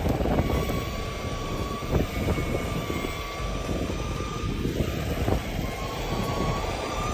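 Electric skateboard's dual 1200 W motors whining at a steady high pitch that sags and climbs a little with speed, over the rumble of urethane street wheels rolling on rough asphalt and a few knocks as they cross cracks. The motor whine is loud.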